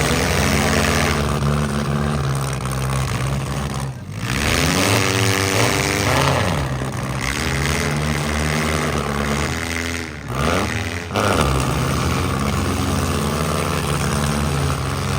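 Demolition derby car engines running loud, revving up and down several times, with pitch sweeps about four seconds in and again around ten seconds.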